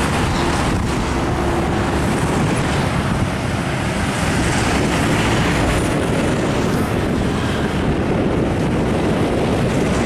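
Heavy diesel trucks passing close on a highway, with engine and tyre noise making a loud, steady rumble.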